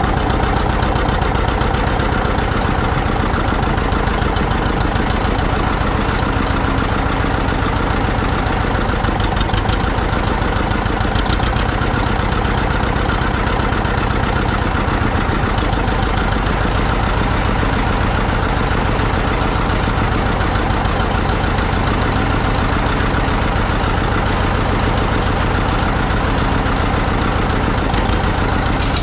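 Engine running steadily at an even speed, with no change in pitch or load.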